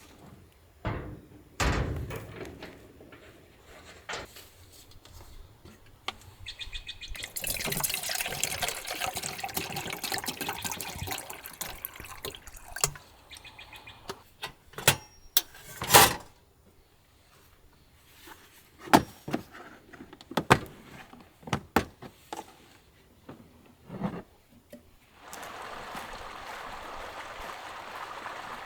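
Water pouring or splashing for several seconds, amid knocks and clunks of things being handled; a steady rush of running water sets in near the end.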